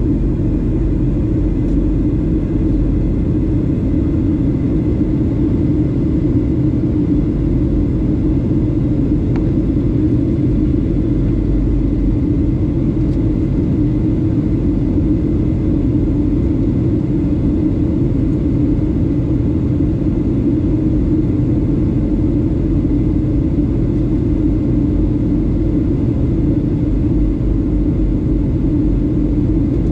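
Steady cabin noise of a Boeing 737-700 on approach, heard from inside at a window seat: the low, even drone of its CFM56-7 turbofans and the airflow over the fuselage.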